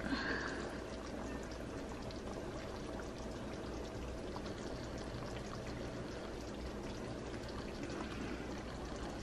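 Pot of beef birria broth simmering, bubbling steadily with a liquid, pouring sound as a ladle skims fat off the surface.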